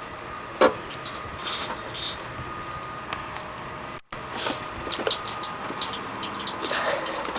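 Scattered clicks and knocks from a Honda lawn mower being handled and held tipped over to drain its old oil, with one sharp knock about half a second in.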